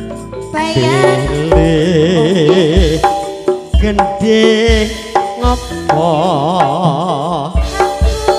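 Campursari band playing an instrumental passage: regular kendang drum strokes under a melody line with a strong, wavering vibrato.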